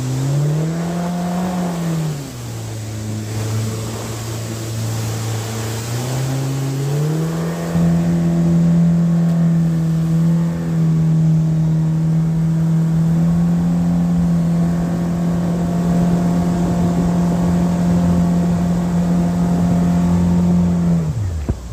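Mercury outboard jet motor driving a jon boat up a shallow creek. The revs rise briefly, drop back for a few seconds, then climb again about seven seconds in and hold steady, before falling away sharply near the end.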